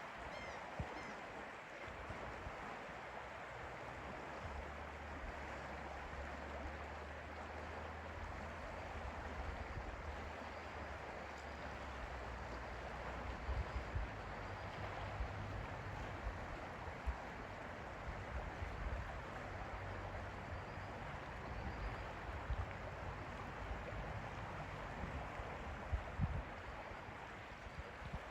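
Lake water lapping and flowing in a steady wash, with a few faint bird chirps. A low steady hum comes in about four seconds in and fades out about two-thirds of the way through.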